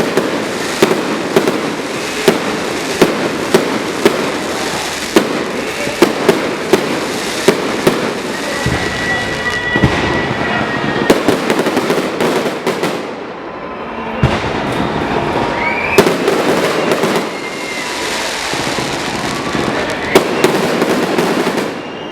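Aerial fireworks display: a run of sharp bangs, one or two a second, over continuous crackling, with a few short whistling tones and a brief lull partway through.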